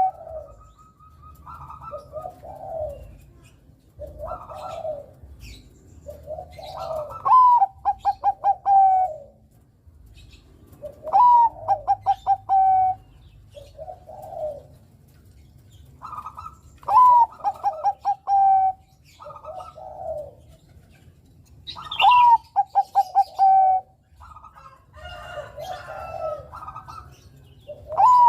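A Bangkok-bred zebra dove (perkutut) cooing its song. Each phrase, repeated about every five seconds, opens on a higher note, runs into a quick stuttering series of coos and ends on a long, lower held note. Softer, shorter coos fall in between.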